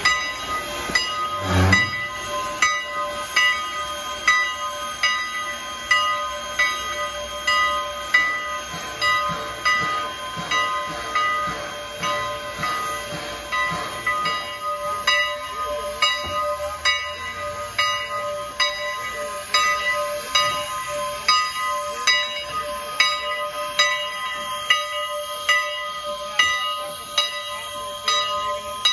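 Standing 2-6-0 mogul steam locomotive's air pump working in a steady rhythm, about three strokes every two seconds, over steam hiss and faint steady ringing tones. One low thump comes about a second and a half in.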